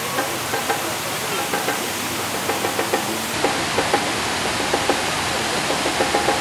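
Waterfall on the Reedy River: water pouring over rock in a steady, loud rush, with short faint pitched blips sounding over it now and then.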